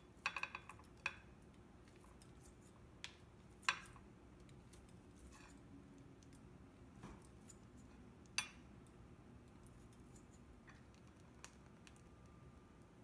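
Kitchen scissors snipping through cooked steak, with clicks of the metal blades and tongs. A quick run of snips in the first second, then a few single sharp snips several seconds apart.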